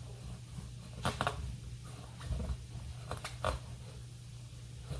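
A kitchen knife cutting crosswise through a raw spaghetti squash, the hard rind giving a few sharp cracks and crunches about a second in and again near the end, over a steady low hum.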